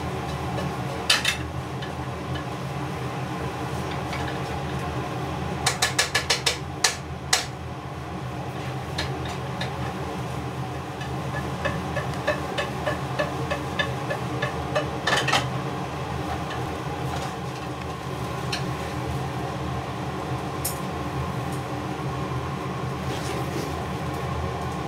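A cat sniffing close to the microphone in short quick snuffs. There is a quick run of about six sniffs several seconds in, then a string of fainter ones, over a steady background hum.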